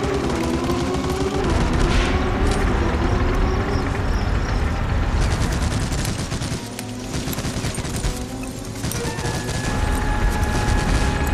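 Dense, rapid machine-gun fire with a low rumble underneath, over background music.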